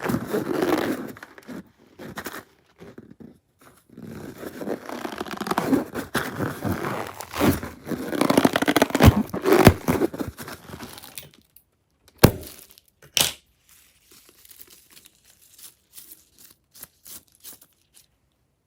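Sticky crackling and tearing of glossy slime being stretched and squeezed by hand. It dies down about eleven seconds in, leaving a few separate sharp clicks and faint taps.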